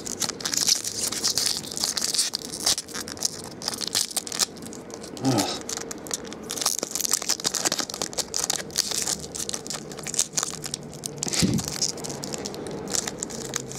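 A foil trading-card pack wrapper crinkling and tearing as it is pulled open by hand, a continuous dense crackle with many sharp little snaps.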